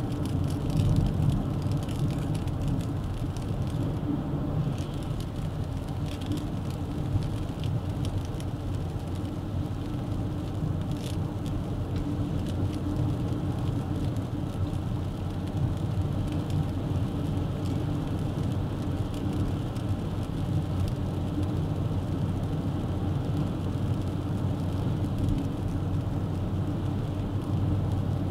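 Duster 1.3 TCe 4x4 driving at a steady speed: a continuous low drone of engine and tyre noise, with faint scattered ticks over it.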